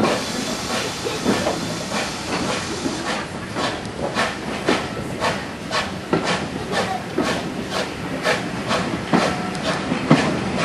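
Steam-hauled heritage train running, heard from an open carriage window: a steady hiss of steam and rushing air with sharp rhythmic beats about twice a second.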